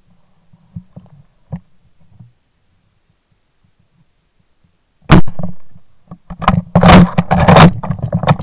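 A shot from a Hushpower-moderated .410 shotgun about five seconds in: a sharp report that dies away over most of a second. It is followed by about two seconds of loud, irregular knocking and rustling, with a few faint clicks before the shot.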